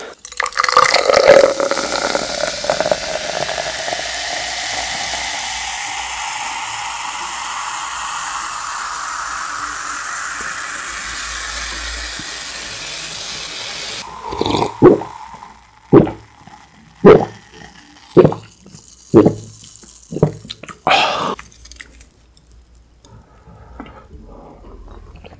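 Soda poured from a can into a tall glass, a steady pour whose note rises as the glass fills, for about twelve seconds. A couple of seconds later come about seven loud gulps, roughly one a second, as the drink is swallowed.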